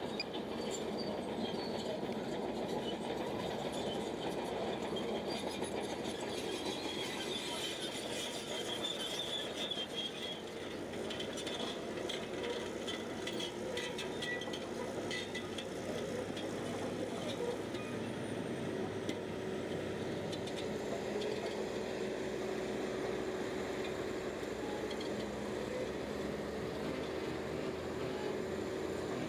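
Crawler bulldozer at work: its diesel engine runs steadily under the squeal and clatter of the steel tracks, with a high squeal strongest a few seconds in.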